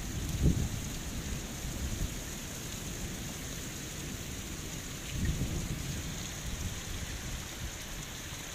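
Heavy rain falling steadily with a hiss, and low rumbles of thunder: a short one about half a second in and a longer one about five seconds in.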